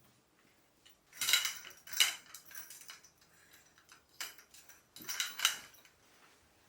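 Kitchenware being handled, clinking and clattering in several short clusters of hard, ringing knocks.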